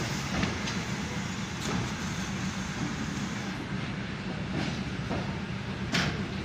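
Vintage passenger coaches rolling past on jointed track: a steady rumble of wheels on rails, with a few sharp clacks as the wheels cross rail joints, the loudest near the end.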